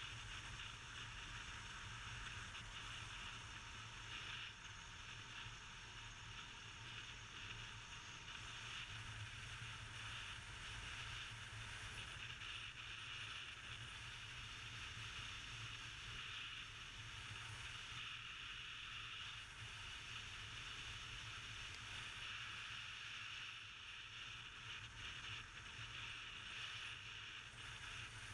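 Steady wind rush and road noise at a motorcycle-mounted camera while riding at a constant speed, with a low engine rumble underneath.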